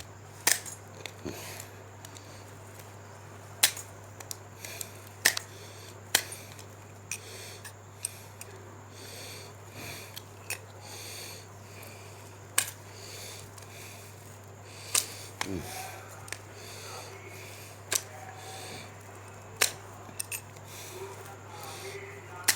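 Sharp, irregular clicks and snaps, one every second or two, as excess bits of plastic are trimmed off a broken broom part, over a steady low hum.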